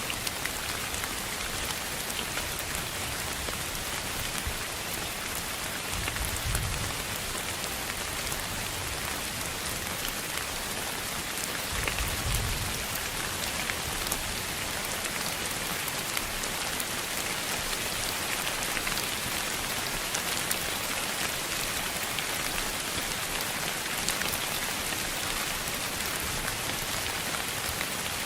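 Continuous sleep-noise hiss billed as pink noise, sounding like steady rain, with faint scattered ticks. Two brief soft low rumbles come about six and twelve seconds in.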